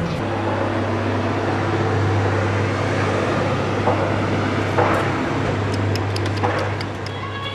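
Steady low mechanical hum over an even background of noise, with a few short, sharp clicks in the second half.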